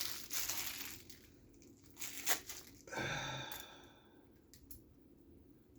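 Plastic packaging crinkling and tearing as a new butterfly knife is unwrapped, then a sharp click, a brief metallic ring and a few faint clicks as the knife is handled.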